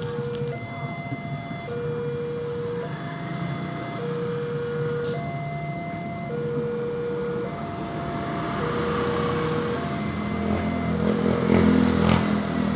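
Railway level-crossing warning alarm sounding a steady two-note electronic signal, alternating low and high tones about a second each, warning of an approaching train. A low rumble swells beneath it over the last few seconds.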